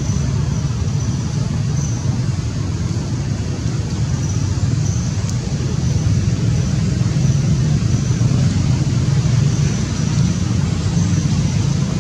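Steady low rumbling noise, even in level throughout, with a faint high thin hiss above it.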